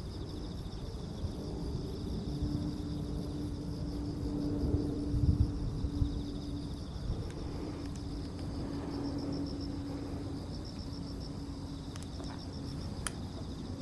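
Crickets chirping in steady, fast-pulsed trills, with a low steady hum underneath and a brief low rumble about five seconds in.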